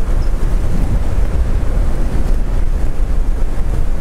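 Wind buffeting the handlebar-mounted GoPro's microphone on an e-bike moving at about 30 mph: a loud, steady low rumble with a hiss above it.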